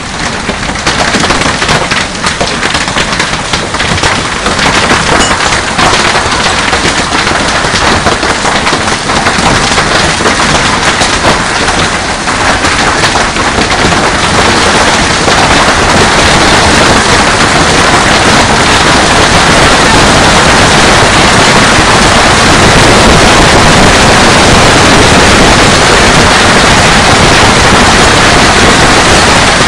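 Heavy hail pelting down: a loud, dense rattle of countless hailstone impacts that grows thicker and steadier about halfway through.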